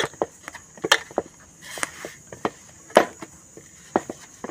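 Hands kneading wheat-flour dough in a metal bowl: irregular soft slaps and knocks as the dough is pressed and pushed against the bowl, several times a second.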